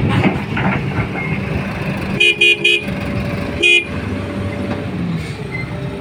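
A vehicle horn gives three quick toots a little over two seconds in, then one more about a second later. Heavy machinery engines run steadily underneath.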